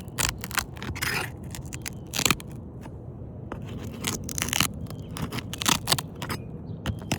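A roof snake scraping under sealed asphalt shingles as it prises their tabs up: a run of short, irregular scrapes and crackles. Each is the sealed tab being torn loose, which leaves the shingle ripped at points of failure.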